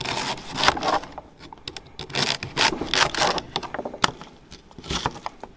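Kitchen knife cutting celery and then onion on a plastic cutting board: a run of crisp, uneven crunching cuts with the blade tapping the board.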